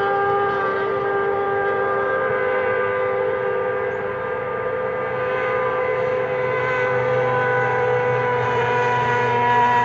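Racing hydroplane engine running at high revs as the boat speeds past, a steady high-pitched whine whose pitch drifts slowly; a lower drone joins about seven seconds in as the boat draws nearer.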